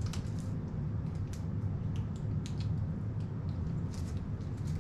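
Steady low room rumble with scattered small clicks and ticks from food and a phone being handled at a small table.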